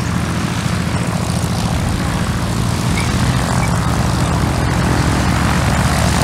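A loud, steady engine drone with a low hum that holds unchanged throughout.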